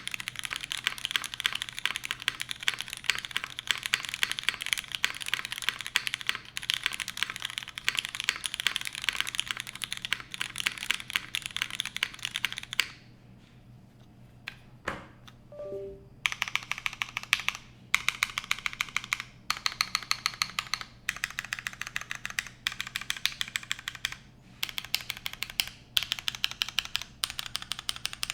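Typing on a Jihyo TKL mechanical keyboard with lubed Cherry MX Red linear switches in an aluminium top-mount case and GMK keycaps. Fast continuous typing stops a little before halfway for about three seconds, then resumes in bursts with short gaps.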